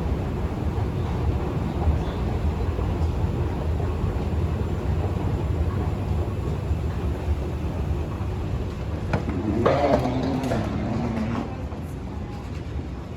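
Steady low rumble of a train in a railway station, with a short wavering pitched sound about ten seconds in.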